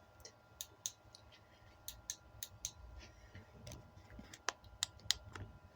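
Faint, irregular clicks and taps, about a dozen, from small hard objects being handled.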